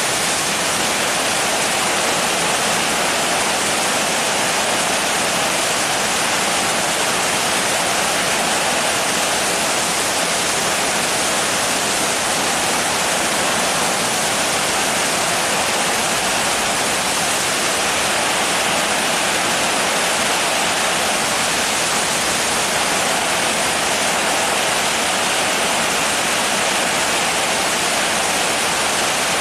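Steady rain: a dense, even hiss of rainfall with no single drops or breaks standing out.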